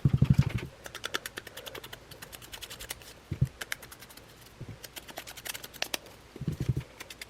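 Distress ink pad dabbed rapidly against paper edges to ink them: a fast run of light taps, with a few duller thumps near the start, in the middle and near the end.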